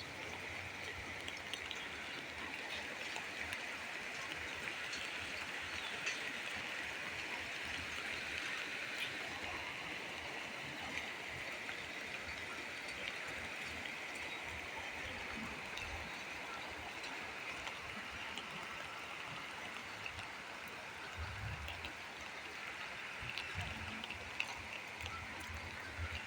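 Floodwater flowing in a steady rush, with a few low bumps near the end.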